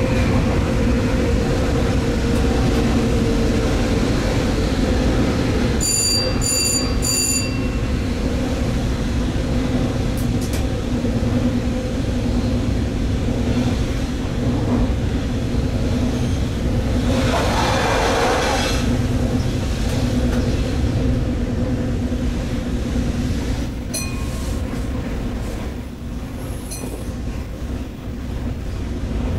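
Stadler GTW diesel multiple unit running under way, heard from the driver's cab: a steady low rumble of engine and wheels with steady engine tones. Three short high beeps sound about six seconds in, and a rush of noise lasts about two seconds near the middle.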